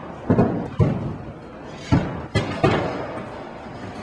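Five heavy thuds with a little ring after each: two about half a second apart near the start, then three in quick succession between two and three seconds in.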